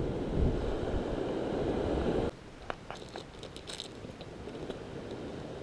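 Small clear plastic lure bag crinkling and rustling in the hand, with a few light clicks, as a fishing lure is taken out. Before that, a steady rushing noise cuts off abruptly about two seconds in.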